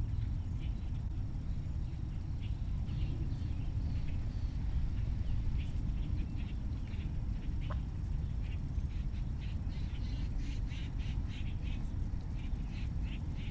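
Ducks on the pond giving short, repeated quacks, coming more often in the second half, over a steady low wind rumble on the microphone.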